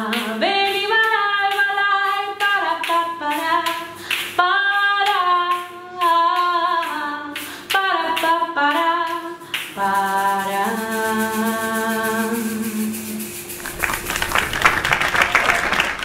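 A woman sings solo to the clicking and rattling of asalato (kass kass) shakers in her hands. The song ends about thirteen seconds in, and an audience applauds for the last couple of seconds.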